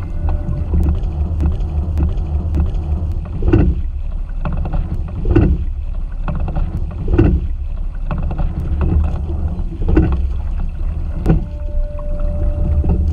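Single racing scull under way: water rushing along the hull and under the fin. Each stroke brings a swell of splash and knocks, about every two seconds, with small sharp clicks between them.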